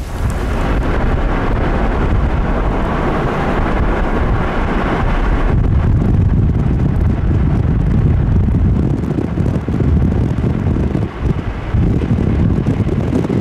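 Strong wind buffeting the microphone: a loud, steady low rumble with a rushing hiss, the hiss thinning about five and a half seconds in.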